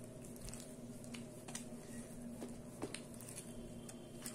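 Plastic spoon stirring a thick semolina and flour batter in a plastic bowl: faint, irregular wet squelches and light clicks.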